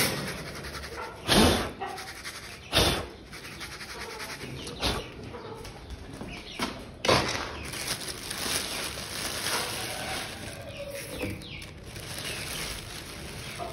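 Feed being put out in a bird coop: four loud knocks or clatters spread over several seconds, then a steady rustle, with birds calling.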